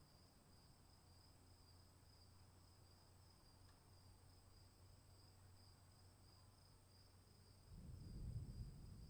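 Faint, steady chirring of insects such as crickets, in two high unbroken tones. Near the end a low rumble of distant thunder swells up beneath it.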